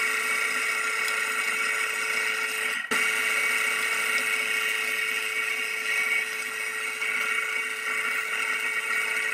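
Old pillar drill (drill press) running with a steady whine while drilling out the bore of a plastic boat bow roller to 10 mm. The sound drops out for a moment about three seconds in, then carries on unchanged.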